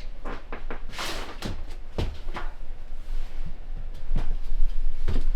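A string of light, irregular knocks and a brief scrape as wooden cabinet parts are handled and set into place.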